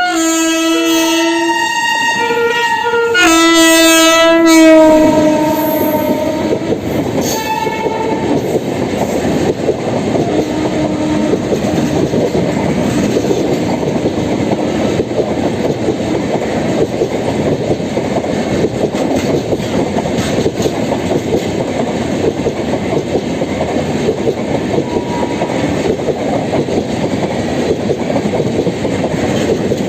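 WAP7 electric locomotive horn sounding several blasts: one at the start, a longer, loud one from about three to five seconds in that dips in pitch at its end, and a short toot about seven seconds in. The train then carries on past at speed, with the coaches' wheels rattling steadily over the track.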